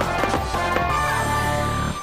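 Background music with held notes and a steady low bass, cutting off near the end.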